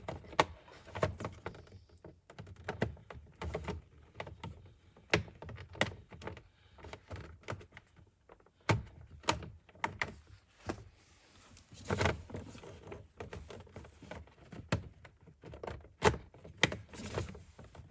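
Irregular clicks and knocks of hard plastic steering column trim being worked and pressed back into place around the column, with a few heavier thuds.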